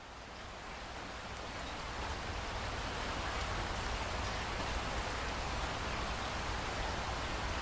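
Steady rain falling, a dense even hiss that fades in over the first couple of seconds and then holds, with a low steady rumble underneath.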